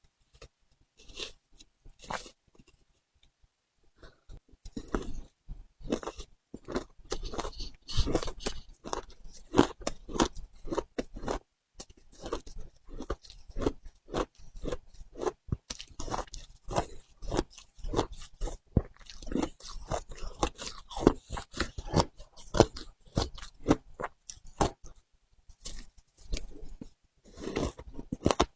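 Frozen matcha ice being bitten and chewed: a run of irregular, crackling crunches. It starts about a second in, pauses briefly, then goes on almost without a break.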